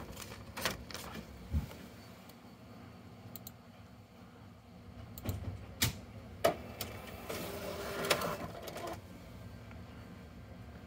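HP ScanJet Enterprise Flow 5000 s4 sheet-feed scanner: a few clicks and knocks of paper and button handling, then about seven seconds in the feed motor runs for about a second and a half, pulling a page through to scan it.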